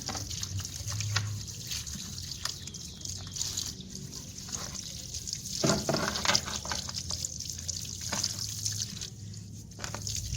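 Water trickling and dripping during washing, with scattered small knocks and taps, loudest about six seconds in.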